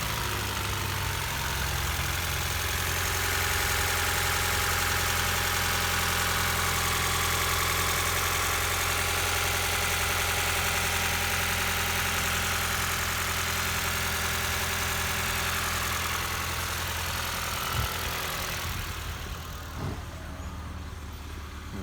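2019 Ford Fiesta engine idling steadily, running again after its cam and crank timing were realigned by eye without the locking tool, not yet confirmed to be in spec. Near the end the steady low hum drops away, with a couple of clicks.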